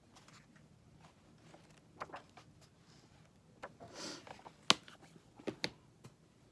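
Paper pages of a hardcover book turning and rustling softly, then a sharp knock about three-quarters of the way through as the book is shut and lifted away, followed by a couple of lighter knocks.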